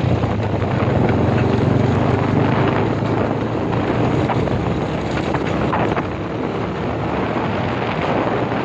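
Motorcycle engine running steadily while riding, with wind rushing over the microphone. The low engine hum is strongest early and eases a little after about six seconds.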